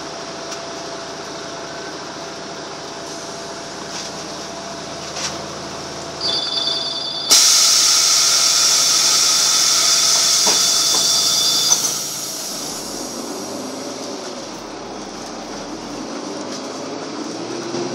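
Interior running noise of a Karosa B941E articulated diesel city bus in motion, a steady engine and road hum. From about 7 to 12 seconds a loud hiss covers it, with a few high steady tones, and it cuts off abruptly. Near the end the engine pitch rises and falls as the bus drives on.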